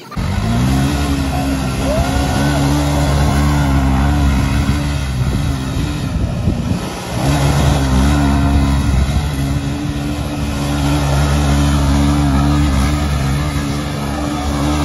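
Suzuki V-Strom motorcycle engine held at high, steady revs as the rear wheel spins and slides on loose dirt. The revs briefly drop off about halfway, then pick up again.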